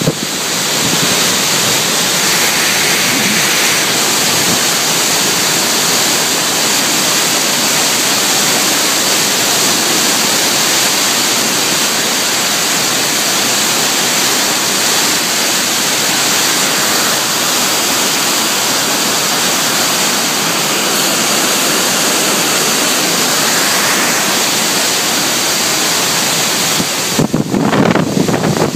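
Torrential hurricane rain and wind making a steady, dense hiss. About two seconds before the end, gusts start buffeting the microphone with uneven low thumps.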